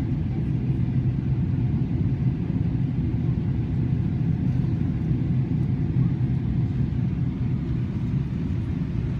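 Steady low rumble of a Boeing 777 airliner's cabin in flight, heard from a window seat, with no change in level.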